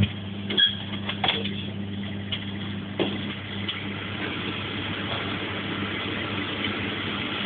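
Microwave oven running with a steady low hum, with a few sharp clicks in the first three seconds.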